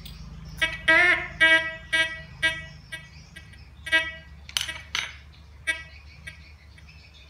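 Metal detector giving a series of short pitched beeps, about two a second, as a knife and a metal file are waved over it; one beep bends in pitch. Two sharp metallic clicks come about two-thirds of the way in, and the beeps stop near the end over a low steady hum.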